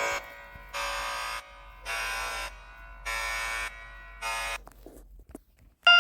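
Harsh electronic emergency-alert buzzer sounding in repeated pulses, about one a second, each lasting roughly two-thirds of a second. Right at the end a steady, higher alert tone cuts in.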